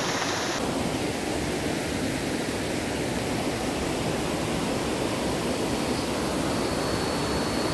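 Steady rush of a river's running water.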